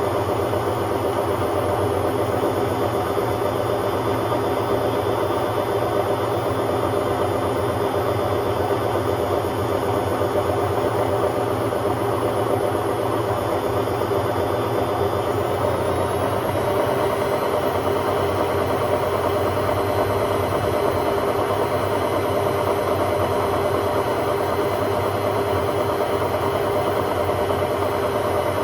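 Hotpoint Aquarius WMA50 washing machine spinning at a steady speed: a loud, even drone with a steady hum, holding constant throughout.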